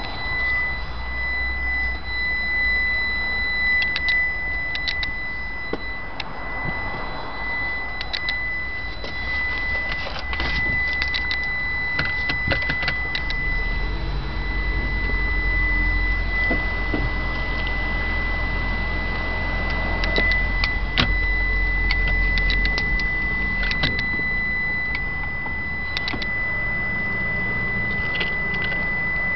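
A steady high-pitched electronic beep tone sounds without a break, with scattered short clicks and knocks of handling.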